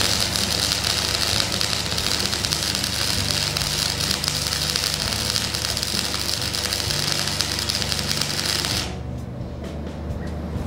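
Arc welding crackling steadily as a flat steel strip is welded onto shipping-container steel, stopping about nine seconds in. Background music plays underneath.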